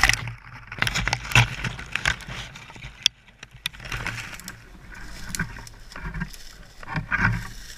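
A KTM 125 EXC enduro bike going down into trailside brush: a loud crash at the start, then irregular knocks, scrapes and the rustle of branches against the bike and the rider's gear.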